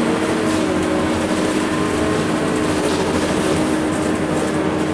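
Scania K230UB city bus heard from inside the passenger cabin while driving: its rear-mounted five-cylinder diesel runs with tyre and road noise and a steady whine throughout.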